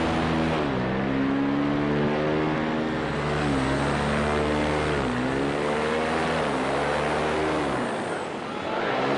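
Paramotor engine running in flight. Its pitch dips and climbs back again several times as the throttle is eased and reopened, with a deeper drop near the end before it picks up again.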